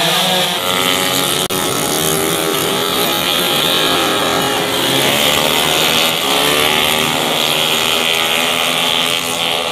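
Several small racing motorcycle engines at high revs, their pitches overlapping and rising and falling as the bikes accelerate through the corner and pass.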